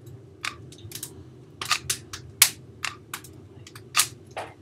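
Clear-shelled electric BB gun being triggered repeatedly: about ten sharp, irregular plastic clicks with no motor run between them. The gun fails to fire on trigger pulls while its motor heats up, and the owner suspects a jam.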